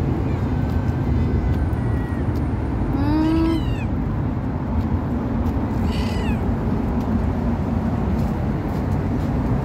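Hungry young street cats meowing for food. There are a few separate meows: the loudest is about three seconds in, and a fainter, higher one comes around six seconds. Under them runs a steady low background rumble.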